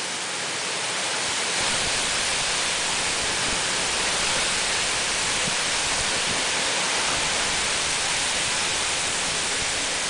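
Heavy typhoon rain and wind making a steady hiss, swelling slightly a second or two in and then holding level.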